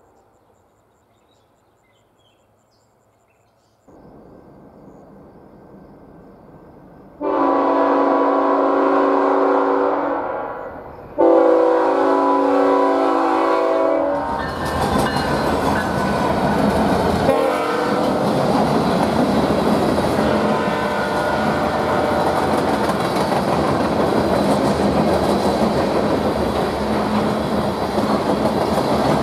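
After a few seconds of near silence, a freight locomotive's Nathan K5HL five-chime air horn blows two long blasts, sounding flat. The freight train then passes close by, its wheels clattering steadily over the rails.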